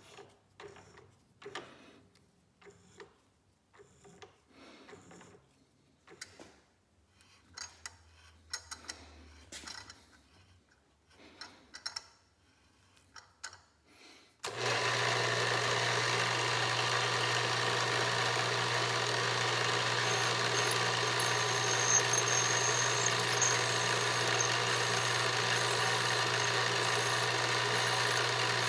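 Quiet clicks and scrapes as a tap is turned by hand into a brass pipe fitting, guided by a milling machine's chuck. About halfway through, this cuts abruptly to the steady hum and whir of a small milling machine running a cutter into a brass pump casting, with a brief high squeal from the cut.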